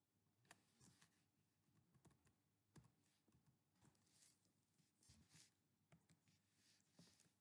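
Very faint computer keyboard typing: scattered key clicks, irregular and unhurried.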